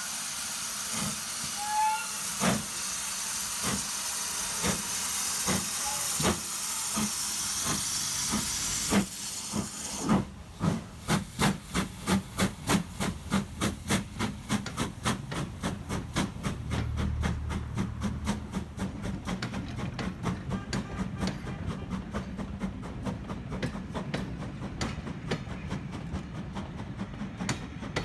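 Steam tank locomotive pulling away with its train. For about ten seconds loud steam hiss runs with slow, spaced exhaust chuffs. The hiss then stops abruptly, leaving regular exhaust beats of two to three a second, with a low rumble of the carriages in the middle, fading as it goes.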